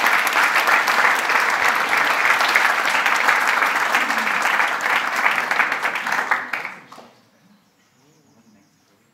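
Audience applauding: a dense clapping of many hands that fades out quickly about seven seconds in, leaving quiet room tone.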